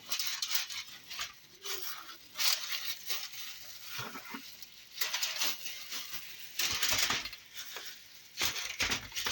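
Kitchen cookware being handled: scattered knocks, scrapes and clatter, a second or two apart.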